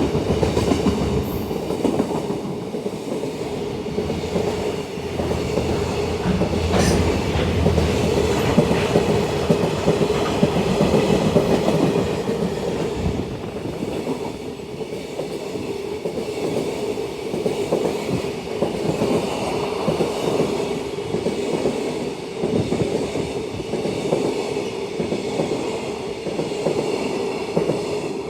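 A long high-speed freight train passing, its wagon wheels clattering over the rail joints with a steady tone underneath. The sound slowly grows quieter over the second half.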